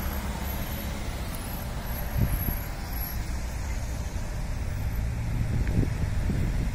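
Street traffic: cars driving past, a steady low engine rumble with louder swells about two seconds in and again near the end.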